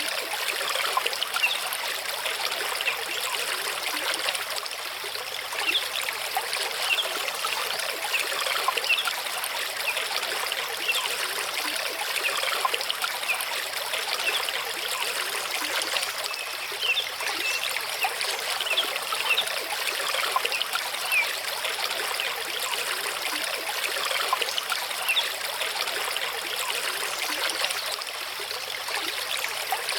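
Mountain stream running over rocks: a steady rush of water dotted with many small splashes.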